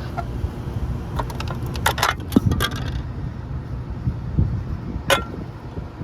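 Sharp metallic clicks and clinks as tools and metal parts are handled at a running air-conditioning condensing unit, mostly in a quick cluster between about one and three seconds in, with one more click near five seconds. Under them is the steady low hum of the running unit.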